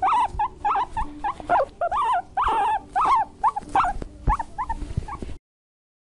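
Guinea pig squeaking: a quick run of short high squeaks, about three a second, that cuts off suddenly near the end.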